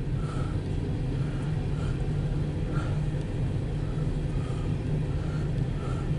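Steady low rumble of an empty coal train's hopper cars rolling past, heard from inside a car, with faint short higher notes coming and going every half second or so.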